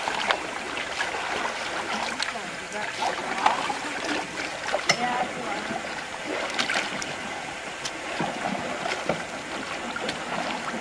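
Canoe on the water: a steady wash of splashing and trickling water from paddling, with scattered sharp knocks and clicks throughout.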